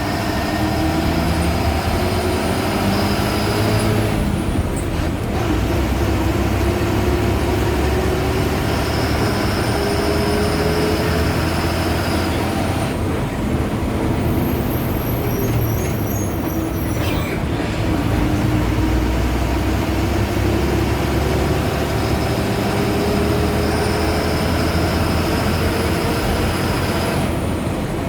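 Ashok Leyland BS4 diesel bus engine pulling through the gears. The engine note climbs steadily in pitch and falls back at each gear change, about four times, with a faint turbocharger whistle rising along with it.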